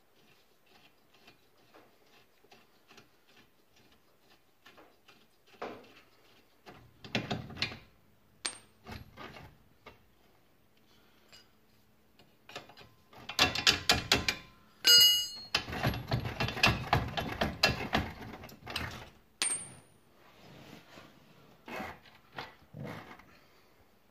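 Hand tools and metal parts clicking and clanking while bolts are worked loose on a car's front hub and suspension. The sounds come as scattered clicks, then a denser run of clattering a little past halfway that includes a brief metallic ring.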